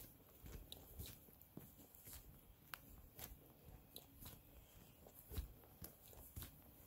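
A hiker's footsteps on a trail, faint, a step about every half second to a second, with small clicks of grit underfoot.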